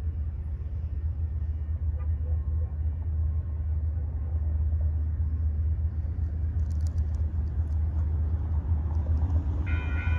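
Low rumble of an approaching freight train hauled by GE diesel locomotives, slowly growing louder. Near the end the railroad crossing's warning bell starts ringing as the crossing signals activate.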